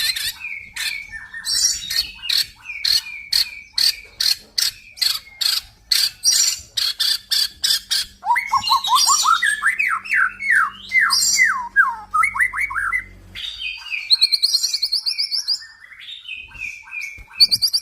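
Male white-rumped shama (murai batu), a crossbred F-series bird, singing a varied song: first a fast series of sharp repeated notes, about three a second, then a run of rising, sliding whistles, then quick high trills near the end.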